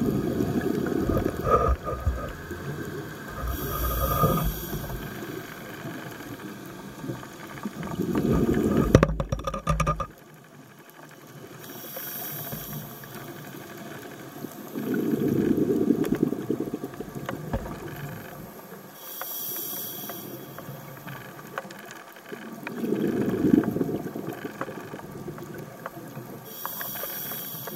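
Scuba diver breathing through a regulator underwater. Each breath is a short high hiss on the inhale, then a longer rumble of exhaled bubbles a few seconds later, in a slow cycle of about seven to eight seconds, four times over.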